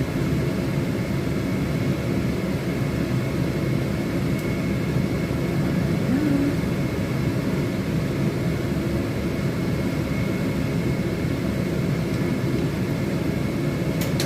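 A fan running steadily, an even rushing noise with a faint, steady high whine.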